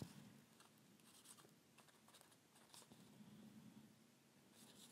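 Near silence, with faint rustles and light taps of paper card and a plastic glue bottle being handled.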